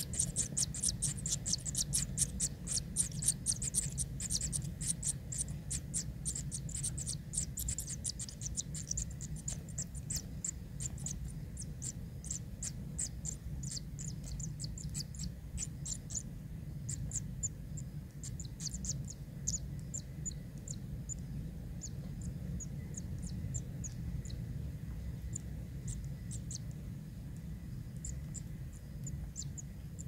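Kingfisher nestlings begging for food: rapid, thin, high ticking calls, several a second, that thin out over the second half, over a low steady hum.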